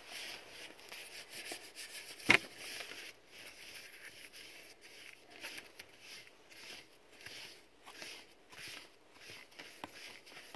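Paintbrush strokes through wet paint on paper: a faint, irregular scratchy swishing, with one sharp tap about two seconds in.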